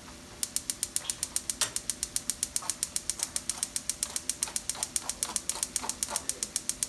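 Gas stove's electric spark igniter clicking rapidly and evenly, several clicks a second, starting about half a second in; the burner is not catching.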